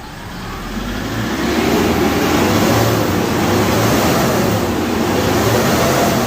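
Kia Bongo 3's J3 CRDi diesel engine running, growing louder over the first couple of seconds and then holding steady. It now starts and runs properly after its faulty injectors were replaced.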